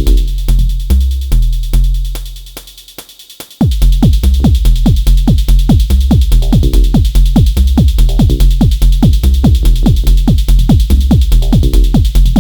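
Techno pattern played on an Elektron Model:Cycles groovebox: a steady kick drum under a fast run of short percussive synth notes that drop in pitch. The sound fades away about two seconds in, then the full groove comes back abruptly at about three and a half seconds.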